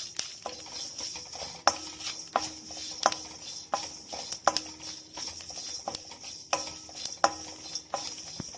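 Spoon or ladle stirring whole spices (cinnamon, fennel seeds, bay leaf, kalpasi) around a kadai as they dry-roast: a steady scraping hiss with a knock of the spoon against the pan about every 0.7 seconds.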